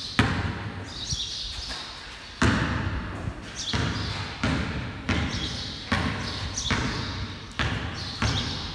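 Basketball bouncing on a concrete floor, each bounce echoing in the large, hard-walled bay. One bounce comes just after the start, then a pause of about two seconds, then bounces follow roughly once a second.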